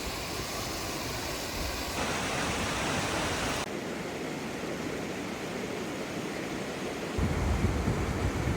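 A mountain waterfall's rushing water makes a steady hiss, which shifts abruptly about two and about four seconds in. A low rumble joins near the end.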